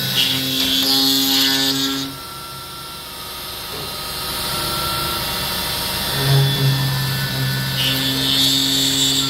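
Milling machine cutting an aluminium profile. The spindle runs with a steady hum, and the cutter bites into the metal with a loud hiss for about the first two seconds and again near the end, quieter in between.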